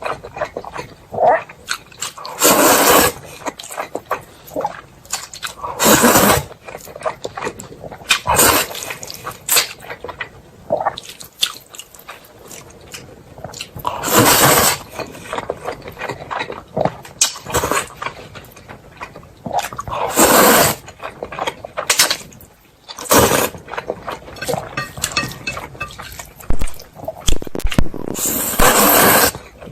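Close-miked eating sounds: chewing and wet mouth noises, with seven loud, short slurp-like bursts spaced a few seconds apart.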